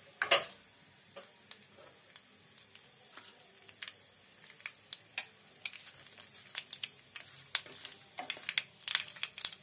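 Mustard seeds popping in hot oil in an aluminium kadhai: scattered sharp pops over a faint sizzle, coming faster in the last couple of seconds as the seeds crackle, the sign that the tempering oil is hot and the tadka is ready. A wooden spatula stirs the seeds near the end.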